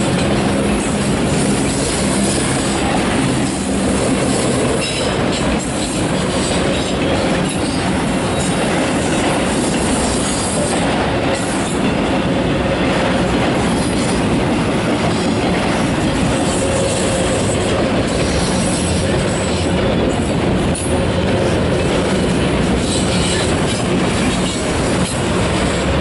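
Autorack cars of a long freight train rolling past close by: steady noise of steel wheels running on the rails, with clickety-clack at the rail joints and a thin steady whine.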